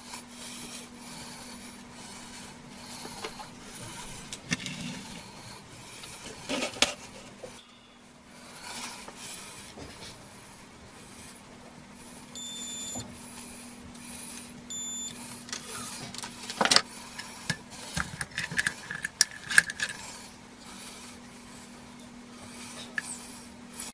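Small clicks, taps and rubbing of tools and parts on a workbench over a steady low hum. A digital multimeter's continuity beeper sounds twice as the probes test the circuit-board connections: a beep of about a second halfway through and a short one a couple of seconds later.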